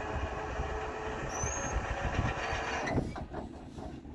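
Freight train cars rolling past, a steady rumble and rattle that drops away sharply about three seconds in.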